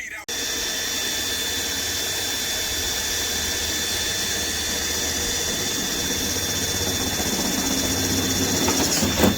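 Power drill boring a hole through the Jeep XJ's sheet-metal hood, running steadily with a faint high squeal from the cutting. It swells briefly near the end and then stops suddenly.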